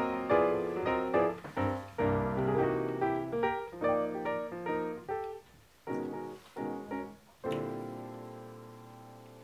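Background piano music: a flowing run of notes that breaks into short separate chords about five seconds in, then ends on one long chord that slowly fades away.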